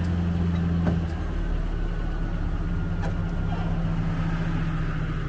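Nissan pickup truck's engine idling steadily just after being started, with a faint click about a second in.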